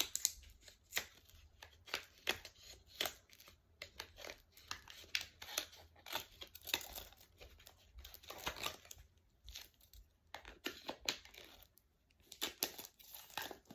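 Packaging being torn open and crinkled by hand, with a run of irregular short crackles and rustles as the last blind package is unwrapped.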